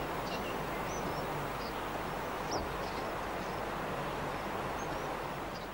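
Outdoor natural ambience: a steady, even hiss with faint, short, high bird chirps scattered through it.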